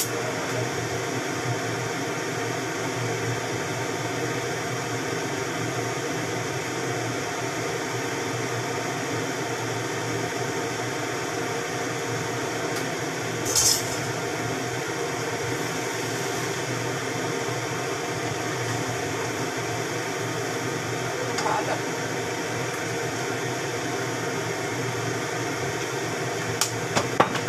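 A steady mechanical hum from kitchen appliances running, with a short hiss about halfway through and a few light clicks of utensils near the end.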